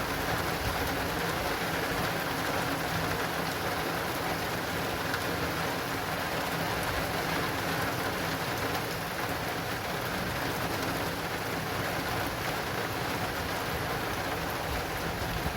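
Heavy rain falling steadily, with raindrops pattering on an acrylic awning.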